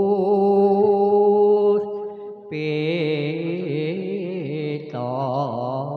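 Banyumasan lengger singing: a voice holding long notes with a slow, wavering vibrato. The line shifts abruptly to new notes about halfway through and again near the end.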